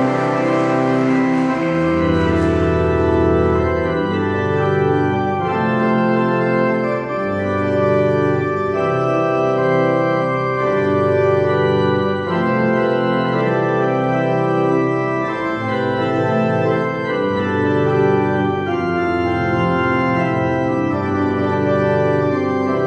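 Pipe organ playing slow, held chords over a bass line that moves to a new note every second or two.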